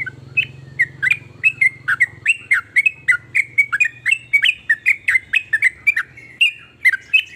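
Yellow-vented bulbul (trucukan) singing in full, continuous song: a fast, unbroken run of short chattering notes, about four a second.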